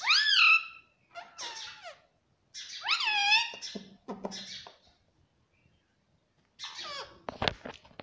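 Indian ringneck parakeet calling in several bursts of high, rising-and-falling squawks and chatter, with a pause in the middle and a single sharp tap about seven and a half seconds in.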